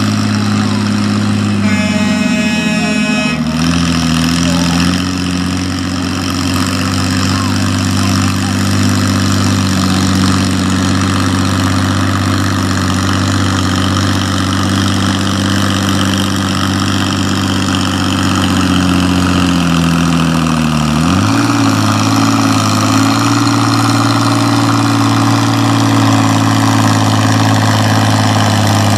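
Farm pulling tractor's engine running at a steady speed, its pitch sagging and then climbing back up about two-thirds of the way through. A short horn-like tone sounds near the start.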